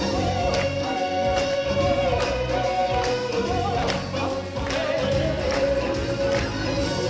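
Live stage-show music: a choir-like ensemble singing held notes over band backing with a steady drum beat.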